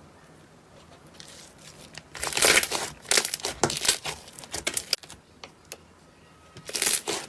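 Slime being squeezed and pulled, giving clusters of crackling pops as trapped air bursts: a quiet start, a run of crackles about two seconds in, and another near the end.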